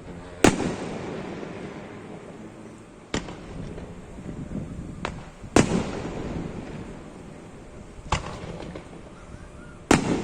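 Aerial fireworks shells bursting: six sharp booms a second or two apart, each trailing off in an echoing rumble, the loudest about half a second in, at about the middle and near the end.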